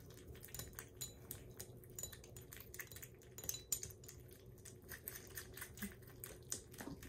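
Kittens lapping and chewing soft weaning food from ceramic bowls: a faint, rapid, irregular patter of small wet clicks and licks.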